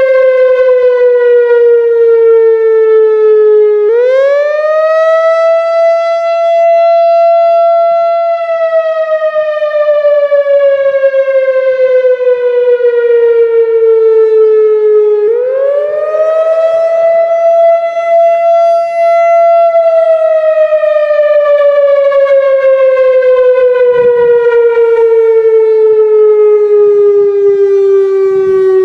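Whelen WPS-4004 analog electronic outdoor warning siren sounding its wail signal for a one-minute test. Its loud tone sweeps up quickly about four seconds in, holds, then slides slowly down. It does the same again about halfway through.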